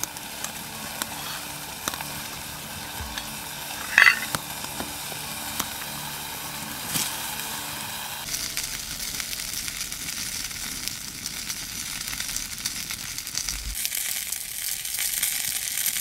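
Food sizzling in a pan, with small crackles and stirring, one sharp metallic clink about four seconds in, and the sizzle growing louder near the end.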